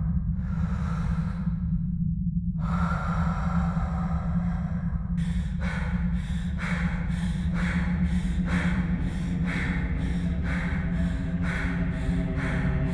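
Dark ambient trailer score: a steady deep drone under two long swells of breath-like noise, then from about five seconds in a regular pulse of nearly two beats a second, with held pitched tones joining near the end.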